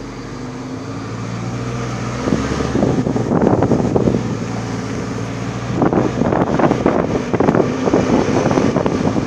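Vehicle engine running with a steady low hum, heard from inside the vehicle. Loud rough rushing and rattling noise comes in twice, from about two seconds in and again from about six seconds in.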